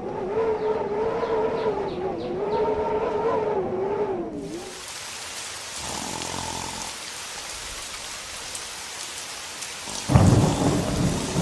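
Thunderstorm: steady heavy rain hiss, with a loud rumble of thunder breaking in near the end. Before the rain starts there is a wavering, whining tone for about four seconds.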